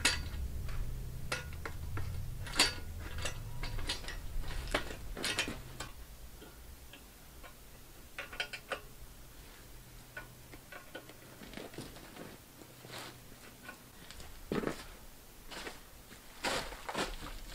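Scattered metal clicks and clanks of an Alaskan chainsaw mill frame being handled and clamped onto a chainsaw's bar, with a quick run of ticks about eight seconds in and heavier knocks near the end. A low steady hum sits under the first few seconds and then fades.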